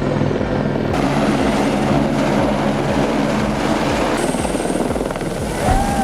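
Helicopter flying overhead, its rotor beating in a steady rhythm.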